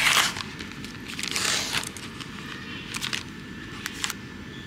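Plastic film being peeled back off a black plastic meal tray, crinkling and crackling in bursts: a loud one at the start, another about a second in, then a few short crackles near the end.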